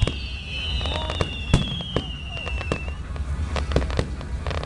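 Aerial fireworks going off: sharp bangs and a run of crackling pops in the second half. A long whistle slides slowly down in pitch over the first three seconds.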